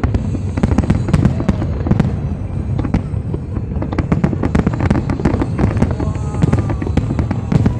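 Fireworks display: a dense, rapid barrage of bangs and crackles over a constant low rumble of booms.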